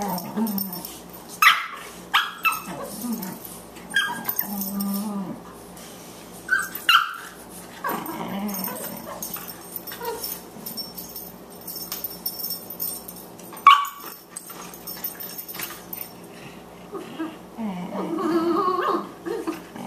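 Two boxer dogs, a puppy and an adult, play-fighting: low play growls with several short, sharp high yips, the loudest about 14 seconds in.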